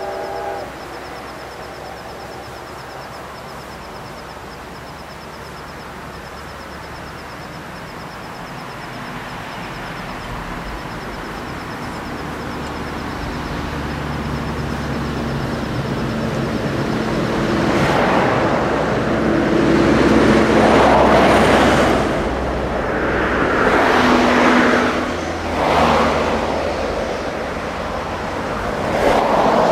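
Steam locomotive D51 498 approaching with its train. The last of its whistle cuts off just after the start, then a rumble grows louder. From about 18 s in come heavy exhaust chuffs, one every two to three seconds, as it works past.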